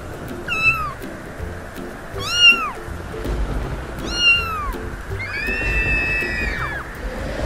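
Kittens meowing: four separate calls that rise briefly and then fall away, spaced about two seconds apart, the last one drawn out longer.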